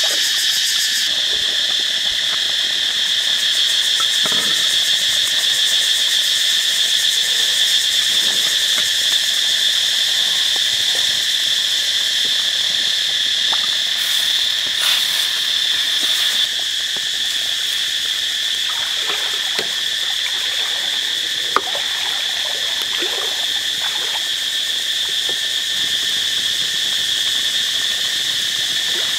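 A steady, high-pitched insect chorus ringing at two fixed pitches. Beneath it are faint knocks and scrapes of a metal ladle in a wok, with one sharp click a little after the middle.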